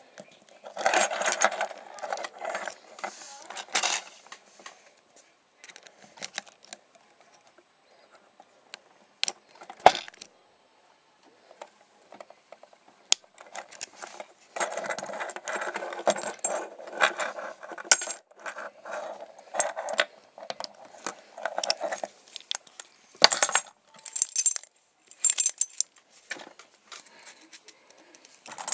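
Lock pick and tension wrench working in the keyway of a Yale 50mm padlock during single-pin picking: long spells of metallic scratching and rattling, with sharp clicks and clinks between them.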